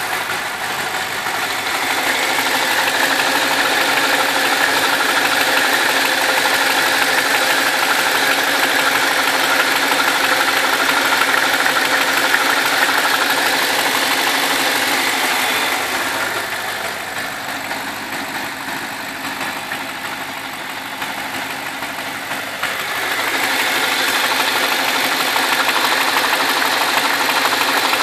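BMW 645Ci's N62 4.4-litre V8 running, with an abnormal mechanical noise that the owner takes to come from the timing chain of the right cylinder bank, directly under the oil filler neck. The sound grows quieter and duller for several seconds past the middle, then returns.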